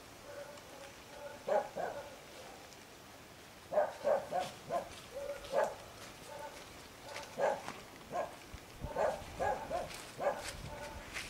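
Dog barking: over a dozen short barks, several coming in quick runs of two to four.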